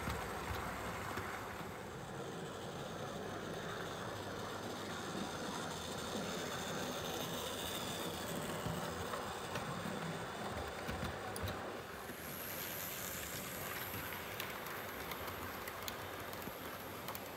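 Model railway train running on sectional track: a steady rolling rumble of the locomotive's motor and the Spantenwagen coaches' wheels on the rails, with scattered small clicks.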